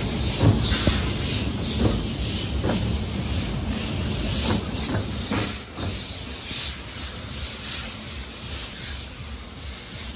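A narrow-gauge steam locomotive hissing steam as it moves slowly along the track, with a few irregular puffs in the first half. The sound grows quieter after about six seconds.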